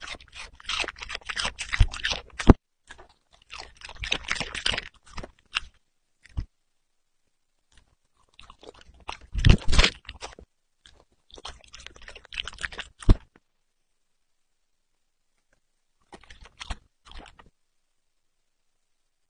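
A puppy chewing and crunching pieces of fruit, heard close up, in several bursts of a second or two with silent pauses between them.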